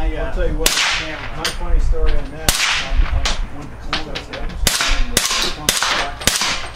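Semi-automatic AR-platform carbine in 300 Blackout firing through a prototype 3D-printed suppressor: a string of about ten shots, spaced irregularly half a second to a second apart. The magazine is loaded with two supersonic rounds followed by subsonic ones.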